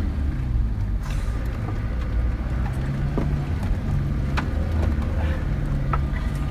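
Four-by-four's engine running, heard from inside the cabin: a low drone that shifts up and down, with a few sharp knocks and rattles from the cab on the rough dirt track.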